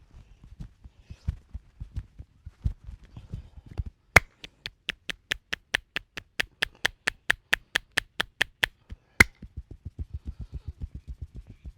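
Hand percussion of a head and back massage. First come dull, uneven thumps of hands on the body. About four seconds in, a run of some twenty sharp claps follows at roughly four a second for five seconds, the first and last loudest. Then comes fast, steady low thumping.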